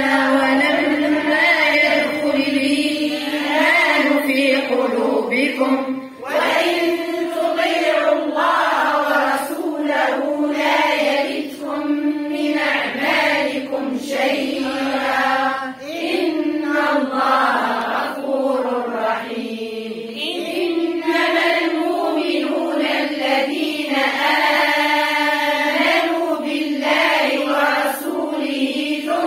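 A group of women reciting the Quran together in unison, chanting with long held vowels in tajwid style. There are short breath pauses between verses about 6 and 16 seconds in.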